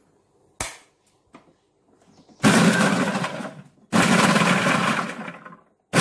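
Inalsa Maxie Marvel food processor pulsed in short runs to break up a batch of green peas, the peas rattling against the plastic bowl. A click comes about half a second in, then two motor runs of about a second and a half each with a brief stop between, and a third starts just at the end.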